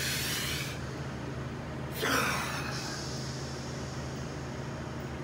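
A man's forceful breathing from the strain of ring push-ups and flies: a sharp exhale right at the start and another about two seconds in, over a steady low hum.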